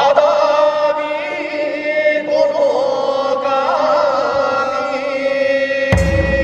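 A kagura song chanted in long, drawn-out notes with small wavering ornaments, and deep drumming that comes in near the end.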